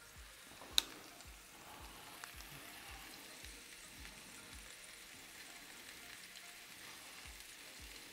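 NY strip steaks searing on the ridged Sear N Sizzle grate of a Ninja Foodi XL indoor grill: a steady frying sizzle. A single sharp click comes about a second in. A faint low beat pulses underneath.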